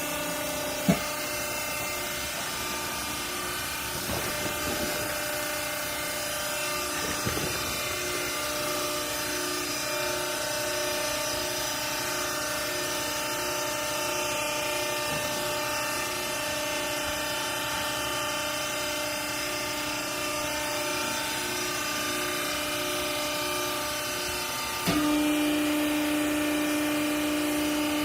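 Hydraulic vertical baler's electric motor and hydraulic pump running with a steady hum and hiss, with a sharp click about a second in. About 25 seconds in the hum steps up, louder and stronger in tone.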